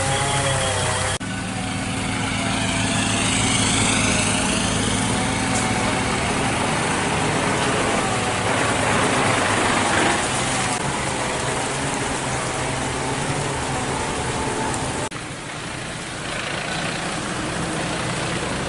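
Vehicle engines idling with a steady low hum over a background of noise; the sound changes abruptly about a second in and again near the end.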